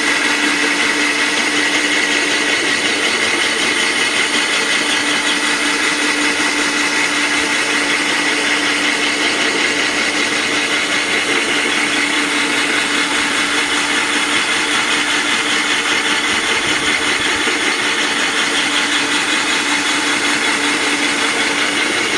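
Cordless drill running steadily with a worn hole saw grinding into wet glass, a continuous even whine with the bit cutting slowly through the sheet.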